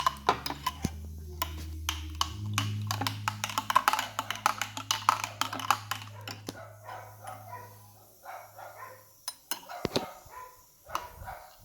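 A spoon stirring a drink in a glass, clinking rapidly against the sides, then slowing to scattered clinks after about six seconds.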